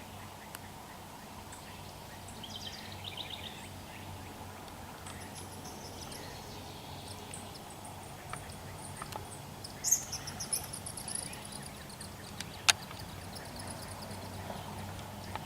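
Small birds chirping and trilling in short high phrases over a steady low background hum, with a single sharp click near the end.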